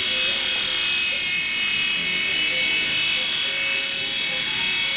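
PicooZ micro RC helicopter's tiny electric rotor motors running with a steady high-pitched whine.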